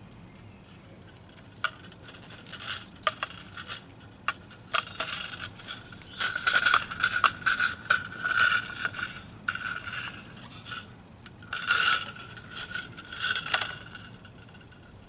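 A fuel filter assembly and its fuel pipes being handled and fitted: a string of irregular clicks, scrapes and rattles of plastic and metal parts, busiest in the middle and again near the end.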